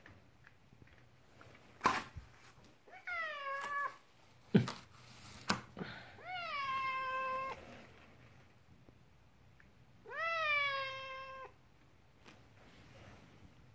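Domestic cat meowing three times, each a drawn-out call that rises, falls and levels off. A few sharp knocks fall between the first two meows and are the loudest sounds.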